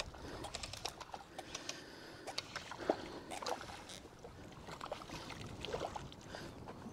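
Water splashing and lapping as a small brown trout, hooked on a fly, thrashes at the surface and is played in. There are short irregular splashes and ticks, the sharpest a little under three seconds in.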